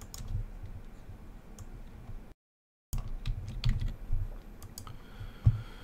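Typing and scattered key clicks on a computer keyboard, with one sharper click about five and a half seconds in. The sound cuts out completely for about half a second near the middle.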